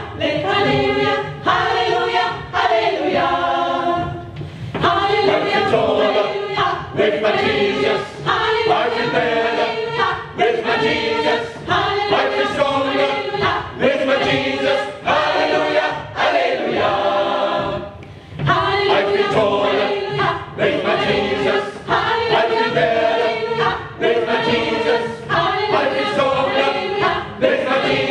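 Gospel choir of mixed men's and women's voices singing a cappella in harmony, in short rhythmic phrases.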